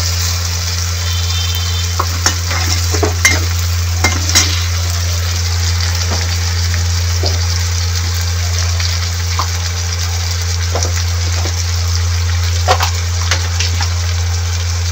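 Chopped onion, tomato and green chillies sizzling in oil in a pan as they are stirred, with the utensil clicking against the pan now and then, over a steady low hum.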